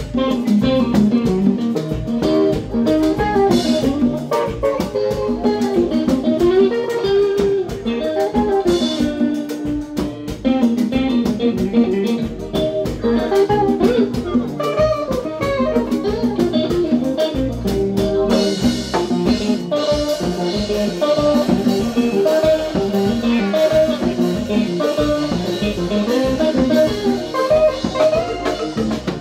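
Live band music led by an electric guitar playing a melodic lead line over a drum kit.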